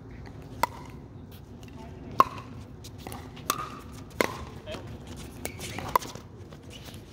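Pickleball rally: five or six sharp pops of paddles hitting the plastic ball at uneven intervals, the loudest about two seconds in.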